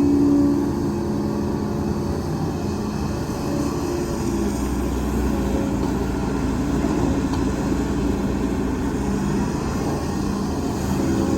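Diesel engine of heavy earthmoving machinery running under load. Its note drops about a second in and climbs again near the end.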